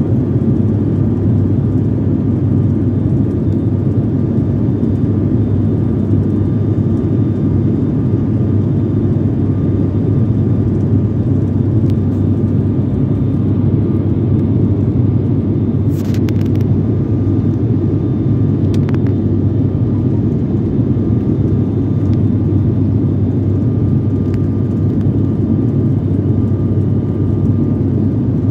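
Steady low rumble of engine and airflow noise inside an airliner cabin on approach to landing, with a faint steady whine over it. A few brief clicks a little past halfway.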